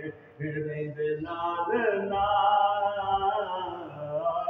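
A man's unaccompanied voice chanting a Punjabi naat (devotional praise recitation) in short melodic phrases, with one long held note in the middle.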